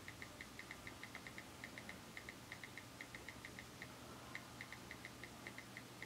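iPhone keyboard clicks as a text message is typed: a quick, uneven run of faint, high, crisp ticks, about five a second, with a short pause near four seconds in. A faint low hum sits underneath.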